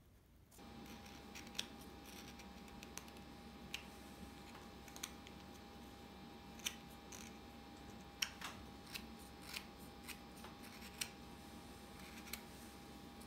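A small hand carving tool paring curly maple, making faint, irregular crisp snicks as chips part from the wood, about one every second. A steady faint tone sits underneath.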